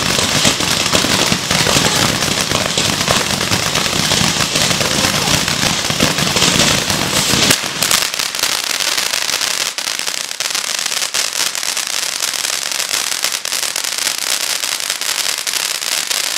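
Multi-effect firework fountain ('San Francisco', 15 steps) spraying sparks: a loud, steady hiss dense with crackling pops. About seven and a half seconds in, the low rumble stops abruptly, leaving a thinner, crackling hiss.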